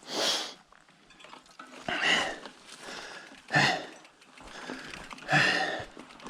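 A person breathing hard and out of breath after exertion: four loud, rough breaths, about one every one and a half to two seconds.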